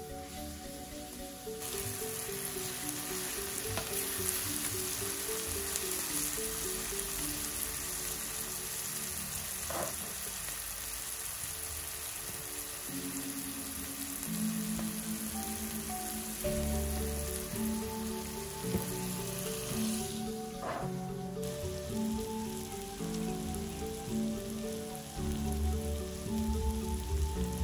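Shredded banana blossom and chilli paste sizzling in a hot clay dish over a wood fire, starting about two seconds in and dying away about twenty seconds in, under gentle melodic background music.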